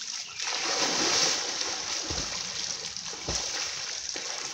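A person plunging into river water and swimming under, with splashing loudest about a second in that then eases into lapping water.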